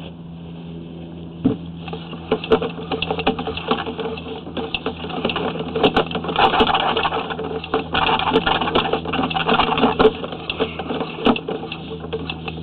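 Sewer inspection camera's push cable being pulled back through a 3-inch ABS drain line, a rapid, irregular clattering and clicking over a steady hum.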